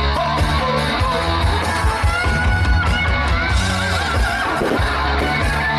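Music with guitar over steady, sustained bass notes, the soundtrack of a musical fireworks show.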